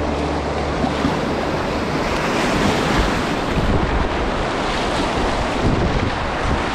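Whitewater rushing on a river rapid, a loud even wash of water noise with wind buffeting the microphone. The tail of a music track stops about a second in.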